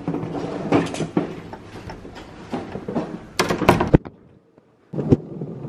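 Suitcase wheels rolling over a wooden floor, a rumble broken by clicks and knocks, with two louder knocks about three and a half seconds in. The sound then drops away briefly and is followed by a single thump.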